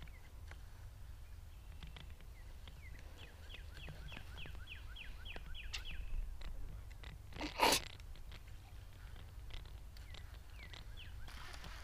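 A songbird sings a quick run of about ten short falling chirps, three or four a second, over faint outdoor background noise. About two-thirds of the way through one brief noisy burst is the loudest sound, and near the end a soft rustling hiss begins.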